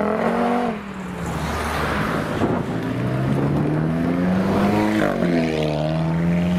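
Alfa Romeo 4C's turbocharged four-cylinder accelerating past, rising in pitch, dropping once about five seconds in, then climbing again. Just before it, a departing Audi TT's engine fades out within the first second.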